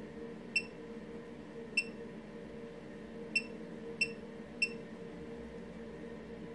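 Aion A7 digital Geiger counter giving five short high-pitched beeps at irregular intervals, each one a detected count of background radiation. A steady low hum runs underneath.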